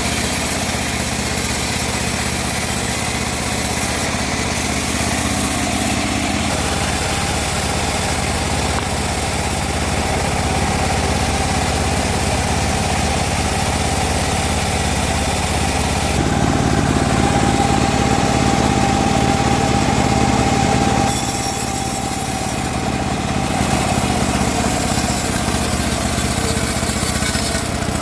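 Homemade band sawmill running while sawing teak, a steady machine drone. A little past the middle it gets louder for about five seconds with a steady high tone, then drops back.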